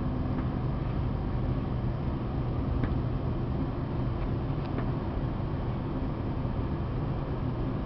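1994 GMC 3500 box truck engine idling steadily, heard from inside the cab.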